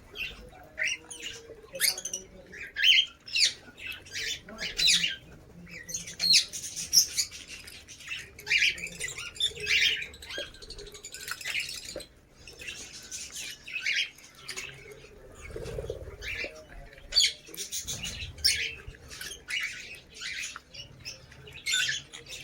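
Lovebirds chirping and squawking, a steady run of short, shrill calls one after another.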